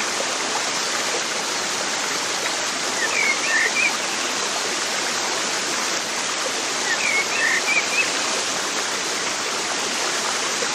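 Steady rushing of flowing water, like a stream, with two brief clusters of short high chirps, about three and seven seconds in.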